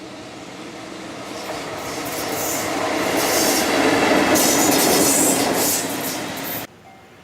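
Electric locomotive-hauled train passing, its rail and wheel noise growing steadily louder as it approaches and is loudest about four to five seconds in. The sound cuts off suddenly near the end.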